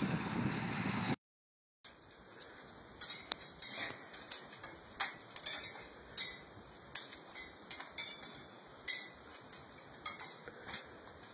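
Wind rumbling on the microphone for about a second, then a brief gap. After that, a metal baby gate gives light, irregular clinks and taps, roughly two a second, as a small dog jumps against it and climbs its bars.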